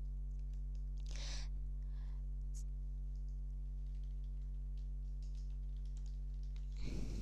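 Steady low electrical hum with a few faint scattered clicks and two brief soft rustles, one about a second in and one near the end.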